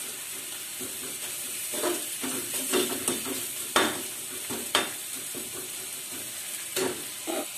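Spatula stirring and scraping a tomato-and-spice masala frying in ghee in a kadai: a steady sizzle with about seven short scrapes against the pan, the loudest about four and five seconds in. The spices are being fried through (bhuna) before the cooked daliya goes in.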